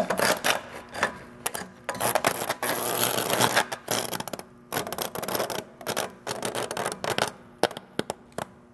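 Power Fist 5-inch angle grinder, plugged in while burning out, crackling and popping irregularly over a faint low hum as its motor smokes: the sound of an electrical short and arcing inside the motor.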